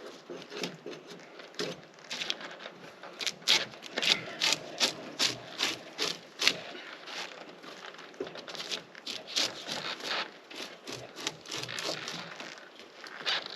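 Drawknife strokes peeling bark off a wet pine log: a steady run of short scraping pulls, about two a second.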